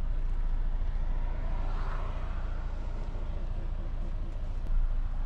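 Semi truck's diesel engine running, a steady low rumble.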